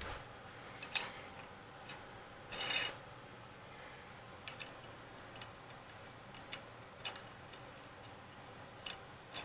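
Scattered light metallic clicks and ticks of steel nuts being handled and run onto the threaded studs of a metal press plate, with a short scrape about two and a half seconds in.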